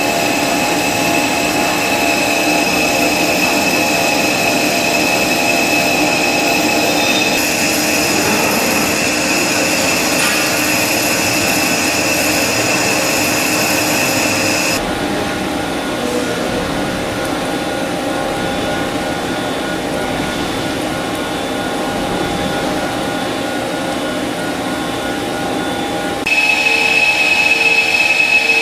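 Metal lathe turning a metal workpiece under coolant: a steady machine whine with a high tone over the hiss of the cut. The sound changes abruptly three times.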